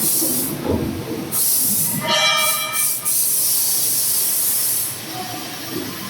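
H-2610L CNC plate sawing and milling machine at work: repeated bursts of loud air hiss, with a short pitched whine about two seconds in.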